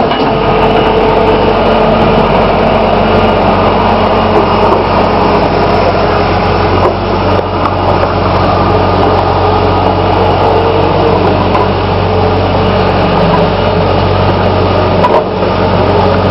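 New Holland skid steer's diesel engine running steadily under load, with a brief dip about fifteen seconds in.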